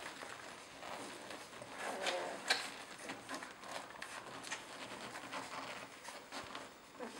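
Rhodesian Ridgeback puppies nursing from their mother: soft suckling and smacking clicks, with their bodies rustling on the bedding. A brief small squeak comes about two seconds in, followed by a sharper click.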